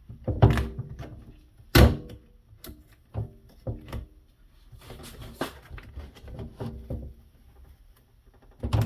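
Skateboard griptape being pulled off the deck by hand against strong adhesive: a run of irregular sharp knocks and thuds, the loudest about half a second and just under two seconds in.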